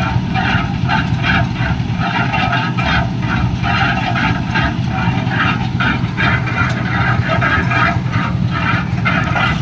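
An engine running steadily with a low hum, with an irregular higher clatter over it a few times a second.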